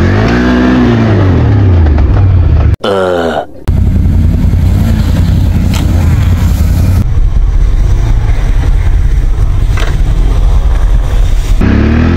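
ATV engines running hard and revving up and down under load in deep snow. About three seconds in the sound cuts off abruptly for a moment, with a short, quieter stretch of rising revs, before the loud engine noise resumes.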